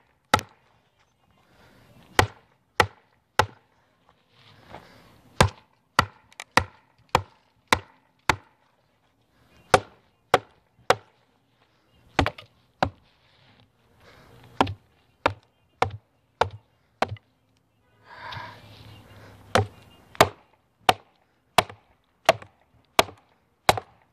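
A wooden baton strikes the spine of a TOPS El Chete, a quarter-inch-thick 1095 carbon-steel chopper, driving the blade down through a thick, tough log. Sharp knocks come about one and a half a second, in runs with short pauses between them.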